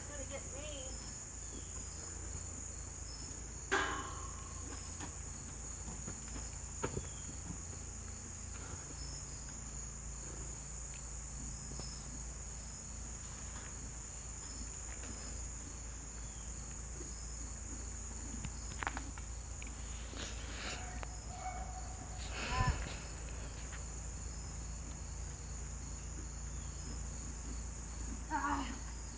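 Steady high-pitched chorus of insects, with a regular pulsing chirp repeating about once a second. A few brief louder sounds break in, the loudest about two-thirds of the way through.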